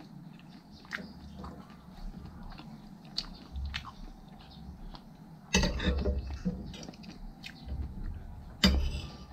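Close-up eating sounds: chewing and biting, with a spoon and fork clinking and scraping on a ceramic plate of rice. Two louder moments stand out, about halfway through and near the end.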